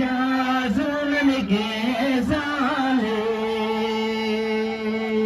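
Tibetan gorshey circle-dance song: voices sing a melody in short phrases, then hold one long steady note from about three seconds in.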